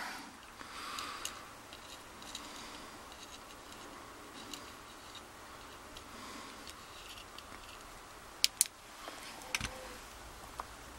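Faint scraping and light metallic clicking of small tools and lock pins being worked out of a pin-tumbler lock cylinder, where pins had been stuck, with a few sharper clicks near the end.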